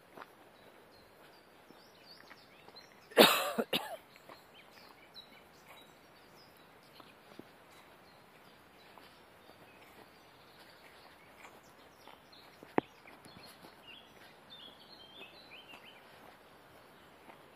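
Footsteps on a gravel path under faint outdoor ambience. About three seconds in comes a loud, brief burst of noise, later a single sharp click, and faint bird chirps near the end.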